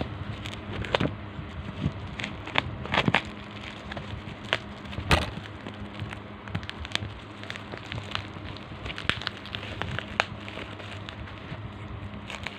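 Packaging being handled and opened: irregular crackles and sharp clicks, with one louder snap about five seconds in, over a steady low hum.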